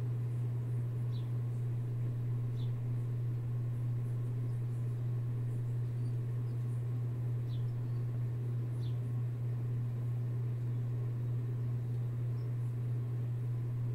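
Steady low electrical-type hum, with about four faint, brief high chirps spread across it.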